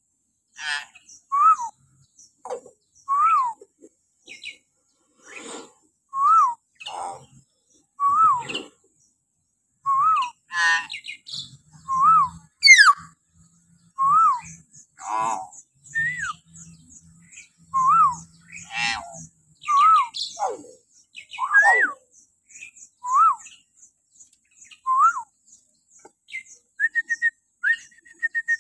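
Hill myna calling shrilly: a short whistled note that rises then falls, repeated every second or two, mixed with harsher rasping calls. A fast high chatter runs underneath, and a quick run of repeated notes comes near the end.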